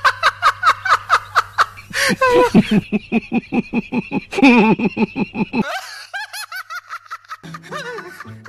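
A man laughing hard in quick, repeated bursts. About halfway through the laugh changes to a higher, thinner run of laughter.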